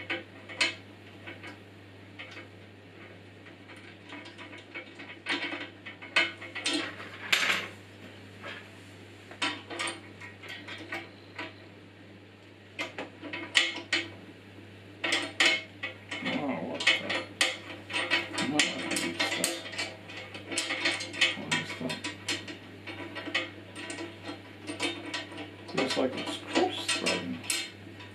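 Irregular metallic clicks and clinks of small parts and a screw being worked by hand at a bandsaw table, with some scraping and rubbing, busier in the second half.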